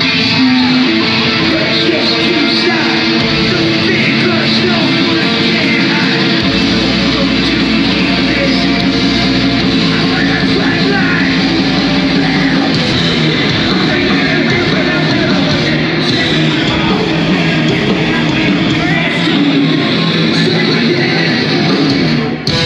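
Nu metal band playing live through a club PA: loud amplified guitars and drums.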